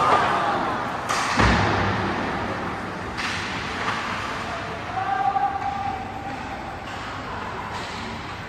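Ice hockey play on a rink: a steady hiss of skates on the ice, sharp knocks of sticks and puck, and a heavy thud about a second and a half in.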